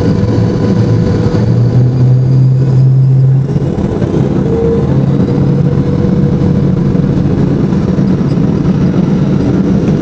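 Lockheed L-1011 TriStar's Rolls-Royce RB211 turbofans at takeoff power, heard from inside the cabin during the takeoff roll: a loud, steady low drone with a faint whine above it.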